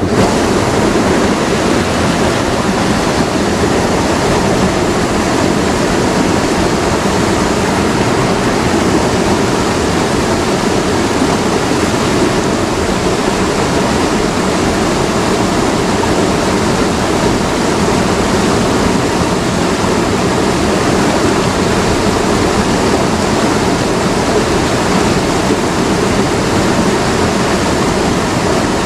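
Swift, murky river rushing over rocks and a small cascade: a loud, steady rush of water that does not change.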